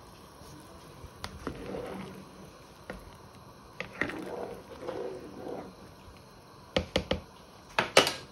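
Chicken stock at a boil in a large pan, stirred with a ladle: soft bubbling and stirring with a few light clicks, then several sharp knocks near the end.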